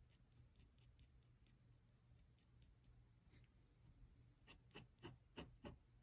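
Faint dip pen nib scratching on paper in short strokes, then about five quicker, louder strokes near the end, roughly three a second.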